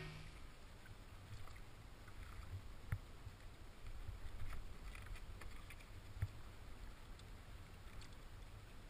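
Faint splashes of a double-bladed kayak paddle dipping and pulling through the water on alternating strokes, a few soft splashes a second or two apart, over a low steady wind rumble.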